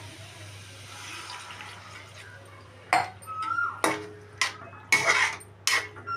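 A spoon clinking and scraping against a cooking pan while a potato curry cooks, with about six sharp clinks in the second half. Underneath is a soft frying hiss and a low steady hum.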